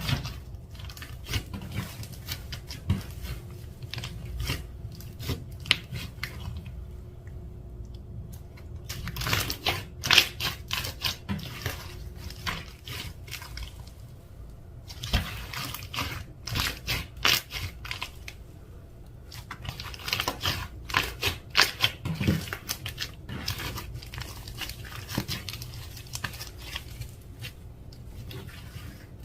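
Slime being squeezed, stretched and folded by hand, giving runs of wet clicking and crackling pops from trapped air, in bursts with short lulls between.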